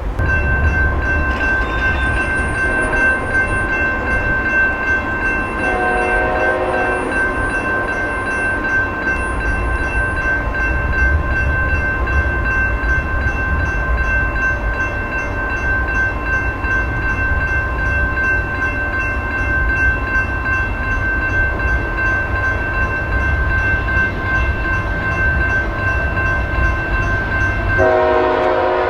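Diesel freight train passing close by: a steady heavy rumble of locomotives and railcars with a continuous high squealing ring over it. A short horn blast sounds about six seconds in, and another begins just before the end.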